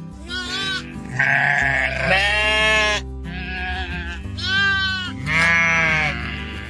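Sheep bleating, about five wavering calls one after another, over background music.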